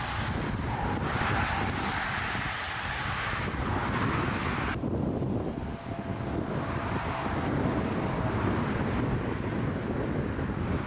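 Strong wind buffeting the microphone: a steady, rough low rumble with hiss above it, the hiss dropping away abruptly about five seconds in.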